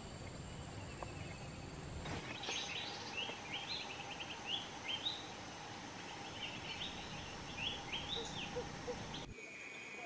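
Small birds chirping in a quick series of short rising and falling notes, over a steady faint hum of rural background noise.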